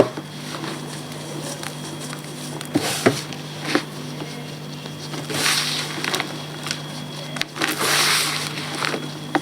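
Block of reformed gym chalk being crumbled: a few sharp snaps about three seconds in, then two longer grainy crumbling rustles.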